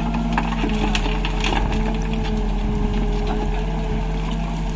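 Case 770 backhoe loader's diesel engine running under load as the backhoe bucket digs into stony soil. A steady whine comes in about half a second in, with a few sharp knocks of stones against the bucket.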